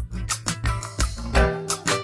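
Background music: an upbeat instrumental with a steady, quick beat of bass and percussion and plucked-guitar notes.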